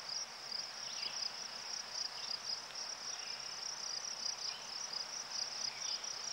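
A steady, high-pitched chorus of chirring insects, with a few faint short calls over it.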